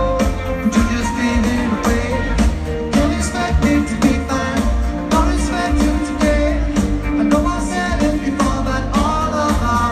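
Live pop-rock band playing loud through a concert PA, with drums, bass, guitar and a lead vocal.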